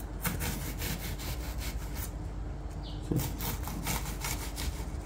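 Chef's knife slicing a halved red onion on a wooden cutting board in quick, even strokes, each stroke a short crisp cut ending in a tap and scrape of the blade on the board. These are the lengthwise cuts made before dicing, stopping short of the root end.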